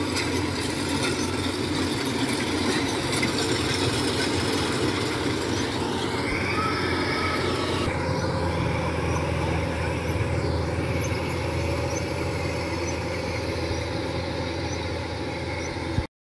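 Rice combine harvester's diesel engine running steadily at work in the paddy, with a brief squeal that rises and falls in pitch about six seconds in.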